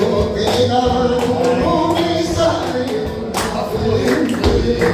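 Live rumba flamenco music: a singing voice with wavering, drawn-out notes over the band's rhythm, punctuated by sharp percussive hits.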